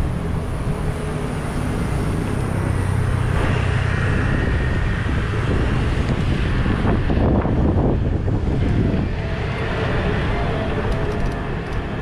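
Wind rushing over the microphone of a moving bicycle rider, over steady street traffic noise with motor vehicles passing, swelling louder about seven seconds in.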